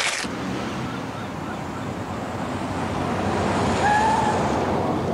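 Street traffic with a car driving past, loudest about four seconds in, when a short squeal cuts through.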